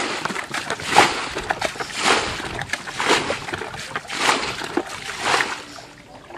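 Muddy water being scooped with a plastic basin and flung out of a ditch: a splashing throw about once a second, six in all, as the ditch is bailed out.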